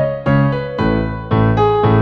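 Background music: keyboard chords struck about twice a second, with a deep bass coming in about a second in.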